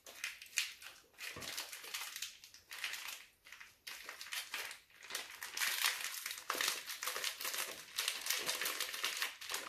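Plastic tofu packaging crinkling and crackling as the tofu is squeezed to drain its water and the wrapper is peeled off the block. The crinkling is irregular and grows busier in the second half.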